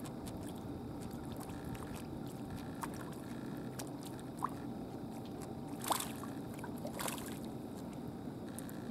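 Hooked filefish thrashing at the water's surface, splashing three times, the loudest about six seconds in, over a steady wash of lapping sea water.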